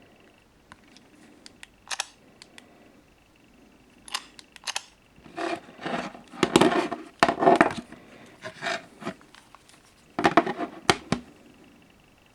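Handling noise: scattered clicks and rustling, with louder scraping and knocking about halfway through and again near the end. No ringtone or alarm tone is sounding.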